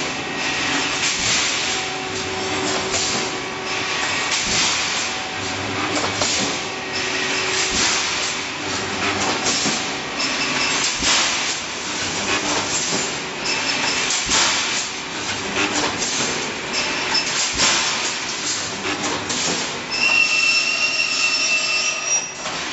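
Automatic rebar mesh welding machine running: a steady mechanical din with sharp clanks and hisses about once a second as its pneumatic welding heads cycle. A steady high whine sounds for about two seconds near the end.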